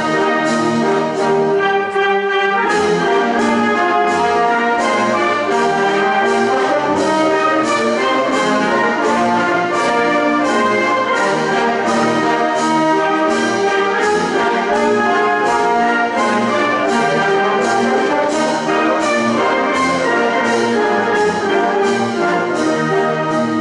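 Symphonic wind band playing a pasodoble, the brass to the fore over a steady beat of percussion strokes, about two a second.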